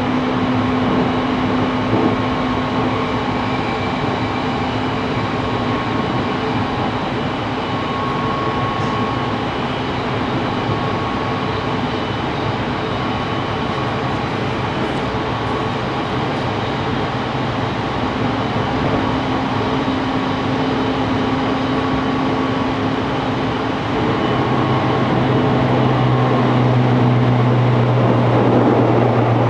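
Running noise inside a JR Kyushu 813-series electric train car under way: steady wheel-and-rail noise with steady motor tones. About 24 seconds in, a deeper hum comes in and the sound grows a little louder.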